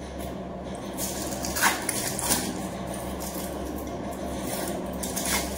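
A water-soaked paper label being peeled and rubbed off a glass beer bottle by hand: a soft, wet scraping and rustling, with a few brief clicks against the glass.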